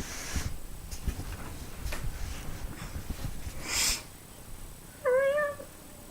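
A 17-year-old cat gives one short meow, about half a second long, about five seconds in. Before it there is rustling and handling noise and a brief breathy rush of noise.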